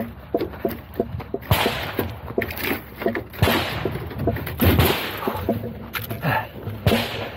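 Gunshots during a practical shooting stage: about five sharp shots a second or two apart, the first about a second and a half in, after light clicking and rattling of gear.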